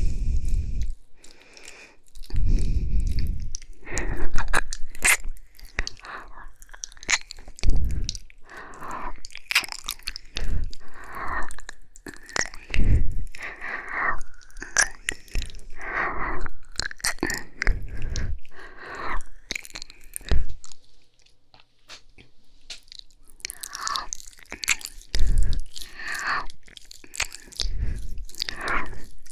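ASMR mouth sounds close to the microphone: slow, wet licking and kissing with breaths between. They come as irregular smacks and clicks, with a few low thumps scattered through.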